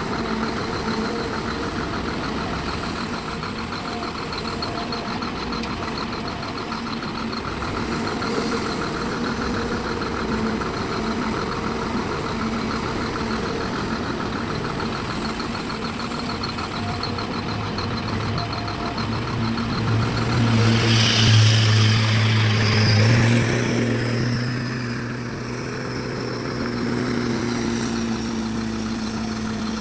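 Heavy diesel engines running steadily. About two-thirds through, a louder surge of deeper engine note with a hiss lasts a few seconds, then settles back.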